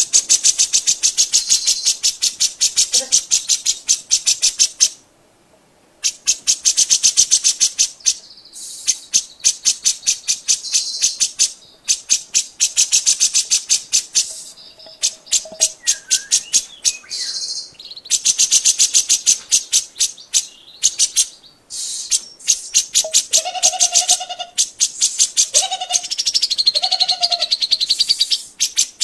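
Cucak jenggot (grey-cheeked bulbul) singing vigorously: bursts of rapid, evenly repeated sharp chattering notes, each run lasting a few seconds with short pauses between. Near the end a few short, lower whistled notes are mixed in.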